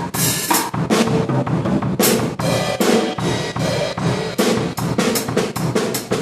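Drum kit being played: bass drum and snare in a quick, busy beat, with cymbal hits.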